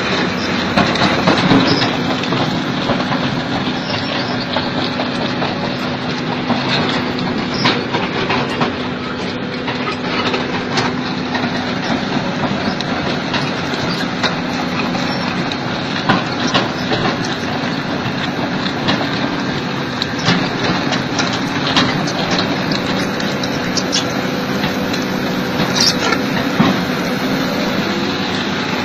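Heavy excavator machinery running: a steady engine drone under a constant clatter of sharp clicks and cracks, as an excavator-mounted rotary drum cutter grinds rock.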